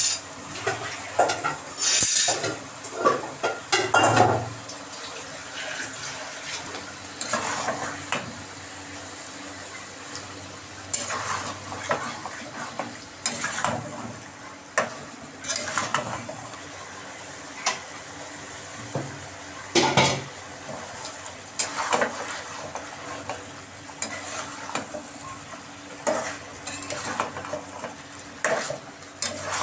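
Chicken and potato curry frying in a pan with a steady sizzle, while a spoon stirs it and scrapes against the pan in irregular strokes.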